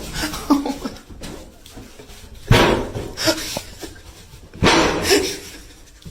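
Dog barking: two loud barks about two seconds apart.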